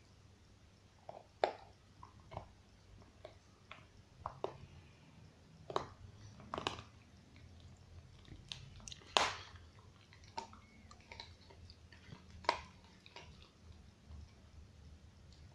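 A dog gnawing on a bone: irregular sharp clicks and cracks of teeth on bone, with a few louder cracks spread through.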